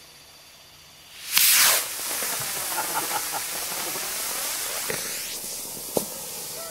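Homemade potassium nitrate rocket motor igniting about a second in with a sudden loud rushing hiss, then burning on with a steady hiss as the rocket climbs away. A sharp crack sounds near the end.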